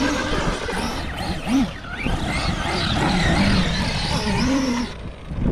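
Arrma Mojave 6S EXB RC truck driving hard, its brushless electric motor whining up and down in pitch as it speeds up and slows, over a steady noise from its Pro-Line paddle tyres churning the ground.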